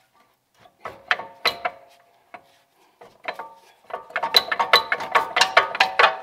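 Metal-on-metal clinking and rattling from a front brake caliper assembly as it is rocked back and forth against the rotor to work it free after its mounting bolts are out. There are a few clinks about a second in, then a quick run of rattles from about four seconds in.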